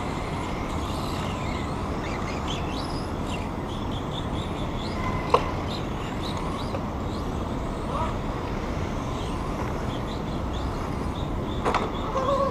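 Small electric radio-controlled cars running around a course on painted concrete, their motors giving short rising and falling whines over a steady low rumble. There is a sharp click about five seconds in.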